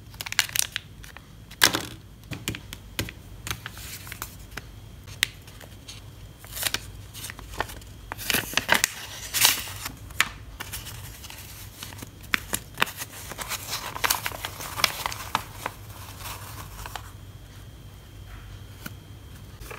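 Paper and foil-plastic packaging handled by hand: irregular crinkling, rustling and sharp crackles as a snack wrapper, a paper envelope and banknotes are handled and unfolded. The handling quietens in the last few seconds.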